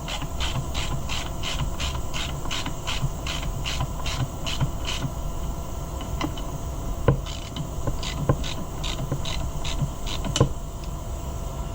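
Hand work on a Homelite chainsaw's parts: a quick run of short rasping metal-on-metal strokes, about three a second, then scattered strokes and sharp clicks. Near the end comes a small metallic tink, the sound of a part breaking.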